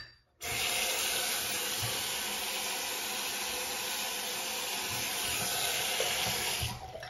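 Bathroom sink faucet running, a steady stream of tap water hissing into the basin; it is turned on about half a second in and shut off near the end.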